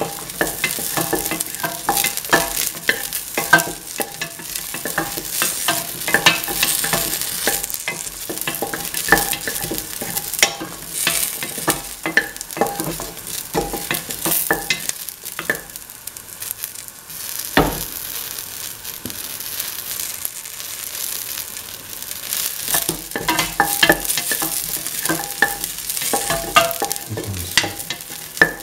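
Shallots, garlic and ginger sautéing in a little oil in a steel pan, sizzling while they are stirred, with many scrapes and clicks of the stirring utensil against the metal.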